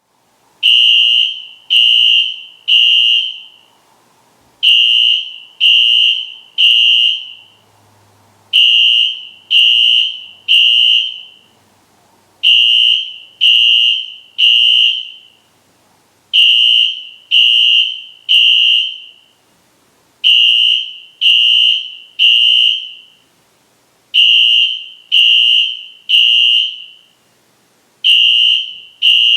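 Newer Wheelock fire alarm horn sounding the temporal-3 evacuation pattern: three short, loud, high-pitched blasts, then a pause, repeating about every four seconds.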